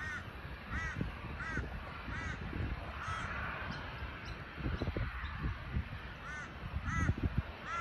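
A crow cawing in short repeated calls: four in the first couple of seconds, then after a pause three more near the end. Underneath runs a low gusty rumble of wind on the microphone, strongest in the second half.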